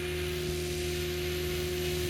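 Helicopter in flight: a steady whine on one constant tone, with an even hiss over it.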